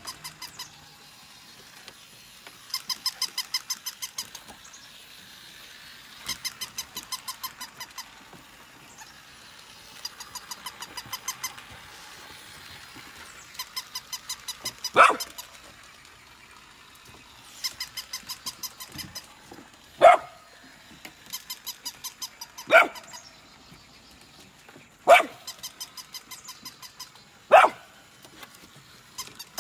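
A golden retriever puppy barking: five short, sharp single barks a few seconds apart in the second half. Behind them, a short run of quick high chirps repeats every three to four seconds.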